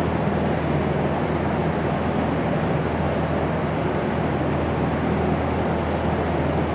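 Steady machine hum with a rushing noise, unchanging throughout, like a fan or motor running.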